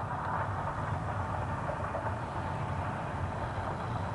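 Airbus A320 jet engines at takeoff thrust during the takeoff roll: a steady, loud rushing noise with a low rumble underneath.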